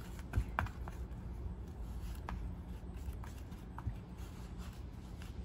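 Wooden stir stick scraping and dabbing JB Weld two-part epoxy as it is mixed on a piece of card: a soft scratchy sound with a few small clicks, over a low steady hum.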